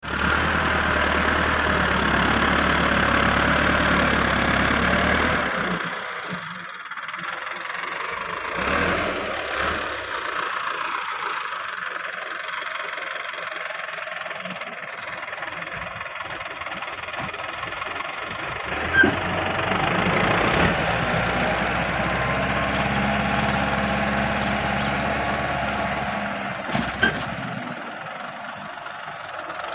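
Massey Ferguson 375 tractor's diesel engine running with a steady note, loud for the first few seconds, then falling back and swelling again in the second half. Two sharp knocks stand out, about two-thirds of the way in and near the end.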